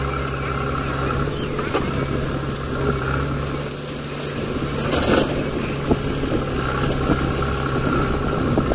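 Diesel engines of a JCB backhoe loader and a tractor running steadily as the backhoe's rear bucket digs into wet clay, with a brief rush of noise about five seconds in.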